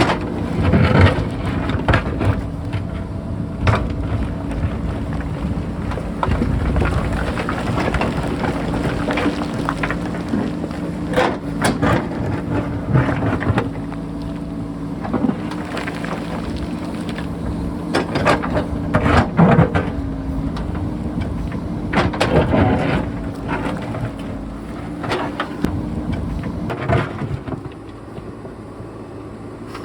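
JCB backhoe loader's diesel engine running steadily under load while the bucket digs and scrapes into rock, with repeated knocks, crunches and clattering of broken rock. The engine drops quieter near the end.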